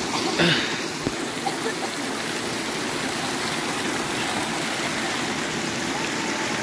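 Small rocky stream tumbling down a little cascade, a steady rush of running water.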